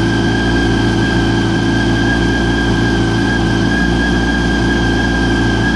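2004 Yamaha R1's inline-four engine idling steadily through a Micron aftermarket exhaust, with a steady high whine over the engine sound.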